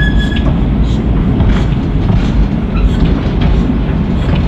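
Narrow-gauge goods wagons rolling past, a steady heavy rumble with irregular clacks of the wheels over rail joints. A high wheel squeal sounds briefly at the start.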